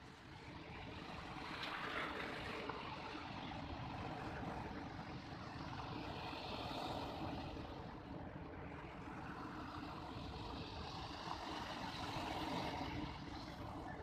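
Large ocean waves breaking and surf washing up a pebble beach, swelling and easing in slow surges about five seconds apart.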